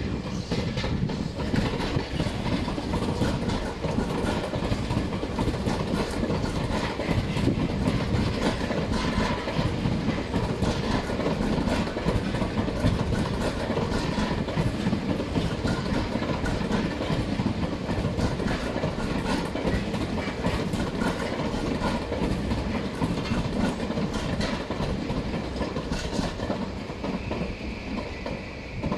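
Tokyu 2020 series electric commuter train running past, its wheels clacking over rail joints and points over a steady rumble. A steady high-pitched tone joins in near the end.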